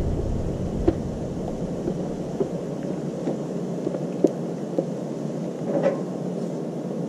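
Peanut oil sizzling on the hot steel top of a Blackstone griddle, with scattered sharp pops every half second or so over a steady rushing noise. A low rumble fades out in the first second.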